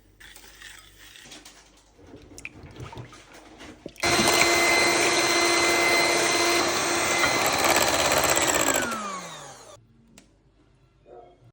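Electric kitchen mixer switched on about four seconds in, running at a steady high whine for about four seconds, then switched off and spinning down with a falling pitch. Light handling sounds come before it.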